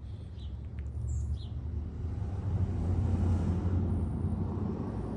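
A low, steady rumble that builds to about three seconds in and then eases off, with a few short, faint bird chirps in the first second and a half.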